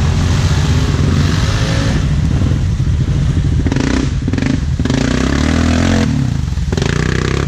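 Off-road ATV or side-by-side engine running hard under throttle, its revs rising and falling, with rattling and clatter from the machine as it drives the trail.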